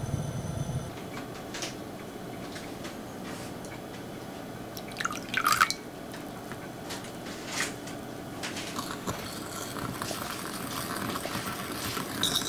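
Milk and sugar in a small glass bowl: a brief pour about five seconds in, with light clicks against the glass. Near the end, a small wire whisk stirring the mixture in the bowl.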